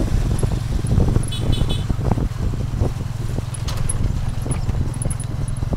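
A Cambodian tuk-tuk, a motorcycle pulling a passenger carriage, heard from inside the carriage: a steady low rumble of engine and wind, with the carriage knocking and rattling over the rough dirt road. Three quick high beeps sound about a second and a half in.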